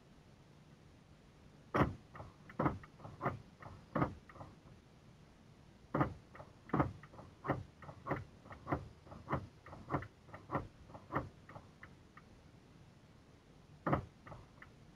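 Car door locks clicking over and over as they are worked repeatedly, heard from inside the cabin. There are two runs of quick clicks at about three a second, with one last click near the end.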